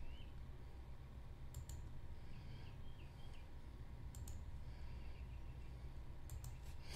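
Faint sharp clicks in quick pairs, three times, over a low steady hum.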